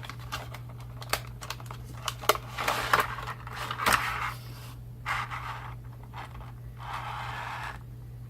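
Hands handling a small plastic wireless keyboard remote and its USB receiver: a run of sharp plastic clicks in the first half, then short scraping and rustling bursts, under a steady low electrical hum.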